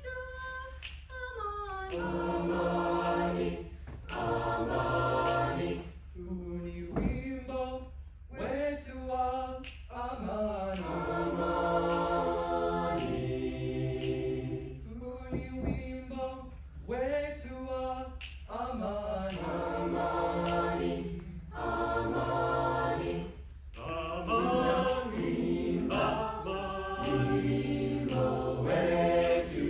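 Chamber choir singing a cappella in several parts. It holds chords that shift every second or two, with short breaths between phrases.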